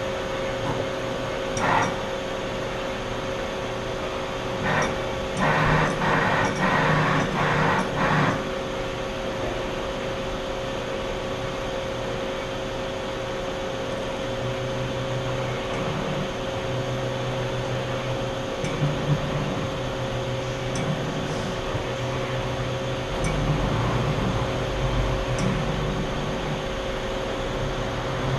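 Mori Seiki SL-00 CNC lathe running, with a steady mechanical hum and whine. Louder bursts of machine noise come about two seconds in and again in a cluster from about five to eight seconds, and the low hum shifts in pitch later.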